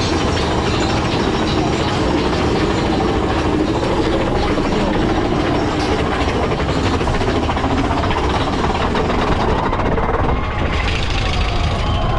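Mine-train roller coaster hauled up its chain lift hill: the lift chain and anti-rollback ratchet clatter steadily with fast clicks, and the train's wheels rumble on the track. The clatter thins near the end as the train nears the top of the lift.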